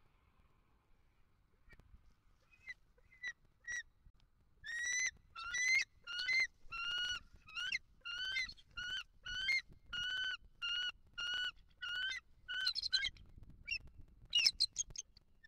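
Bald eagle calling: a few short notes, then a long run of high-pitched call notes, each rising and falling in pitch, about two a second, ending in a quicker chatter.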